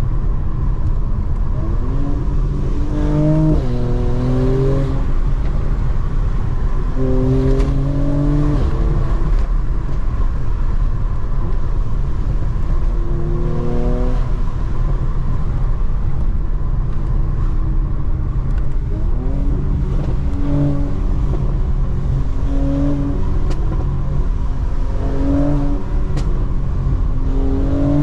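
2020 Mercedes-AMG C43's 3.0-litre twin-turbo V6 pulling through repeated bursts of acceleration, its pitch rising and then dropping sharply at each gear change, over a steady low road rumble.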